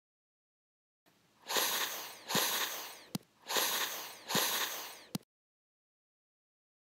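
Added sound effects for a Lego stop-motion figure jumping: four short noisy bursts, each starting sharply and fading, in two pairs, each pair ending in a sharp click. Silence before the first burst and after the last click.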